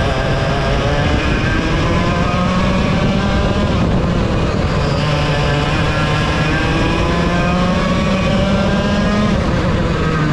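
Vortex ROK VLR 100cc two-stroke kart engine running hard under the driver: its pitch climbs along the straights and drops as the driver lifts for corners, about four seconds in and again near the end, then climbs again.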